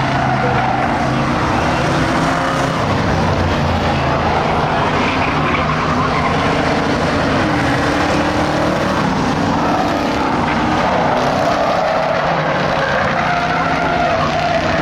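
Ford Crown Victoria race cars' V8 engines running on a dirt oval, engine pitch rising and falling again and again as the cars pass.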